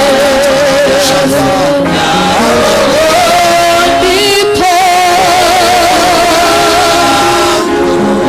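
Worship singing with instrumental accompaniment: a voice holds long notes with a wavering vibrato over sustained chords.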